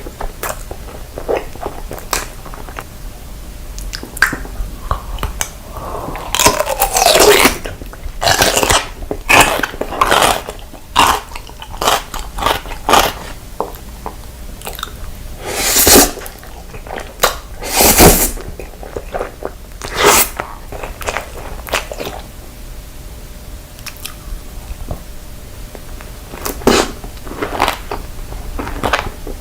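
Close-miked eating of crunchy food: irregular crisp bites and crunching chews, busiest in the first half, with a few loud single crunches later on.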